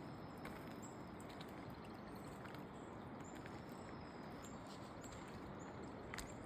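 Floodwater running across a road like a stream: a steady, faint rushing of water.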